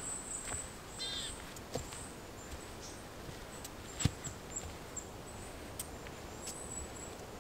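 Quiet forest ambience with small birds calling: thin, high notes repeating throughout and a short chirping call about a second in. Scattered faint clicks, with a sharper knock about four seconds in.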